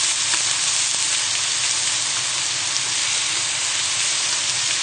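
Cod and whitebait frying in hot oil: a steady sizzle.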